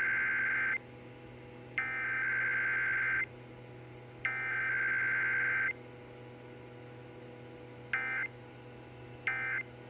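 Emergency Alert System SAME data bursts: harsh two-tone digital buzzes, the tail of one long header burst and then two more, each about a second and a half with a second's gap, followed near the end by two short end-of-message bursts. The header runs straight into the end-of-message code with no attention tone or message between, as in an EAS Required Weekly Test. A steady low hum runs underneath.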